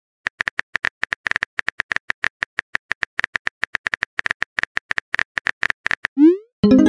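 Texting-app keyboard tap clicks, about eight a second, as a message is typed out. Near the end a rising swoosh and a short bright chime sound as the message is sent.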